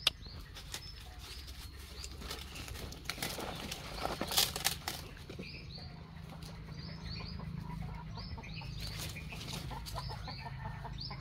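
Chickens clucking with many short high chirps, over bursts of rustling in dry leaves and undergrowth, the loudest about four seconds in and another about nine seconds in.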